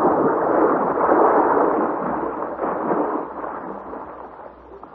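Radio-drama sound effect of the plesiosaurus in its death throes at the sea's surface: a loud surge of noise with no clear pitch, strongest in the first couple of seconds and dying away over about four seconds.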